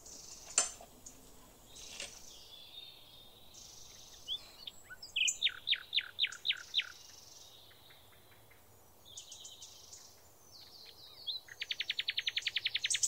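Small birds singing: scattered chirps, a run of about seven loud, clear notes around six seconds in, and a fast, even trill near the end. A single sharp click about half a second in.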